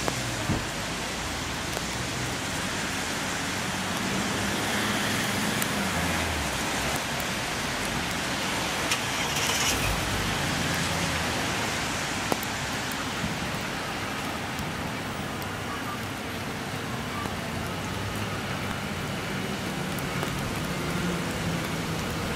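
Steady rain with a Metro Trains X'trapolis 100 electric multiple unit approaching along the track and running into the platform, its low running noise under the hiss of the rain.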